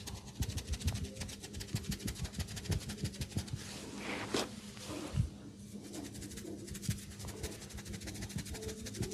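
Hands massaging an oiled head and hair: rubbing and kneading with a run of quick, soft thumps, over a faint steady hum.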